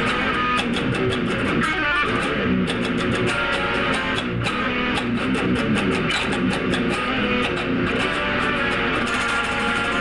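Electric guitar played continuously, a fast run of picked notes without a break.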